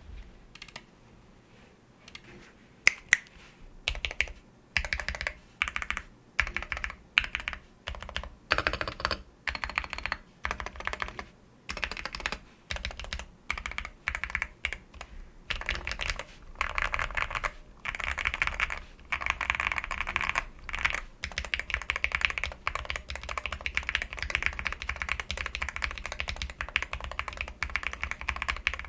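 Typing on an Akko MOD007 HE mechanical keyboard with stock Kailh Pink switches: single keystrokes and short runs of key presses at first, then steady fast typing through the last third.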